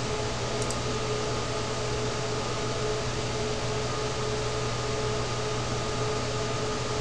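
Steady background hum and hiss of a quiet room recording, with a low hum and a few faint steady higher tones, like a computer fan or electrical hum picked up by the microphone. A faint click comes under a second in.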